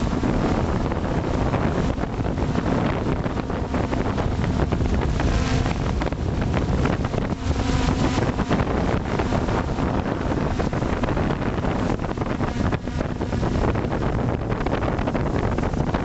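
Multirotor drone's motors and propellers running steadily, recorded by the camera on board, with wind buffeting the microphone.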